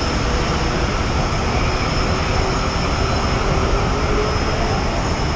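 Steady rumbling roar with a faint hum through it and no distinct events; it jumps suddenly louder at the very end.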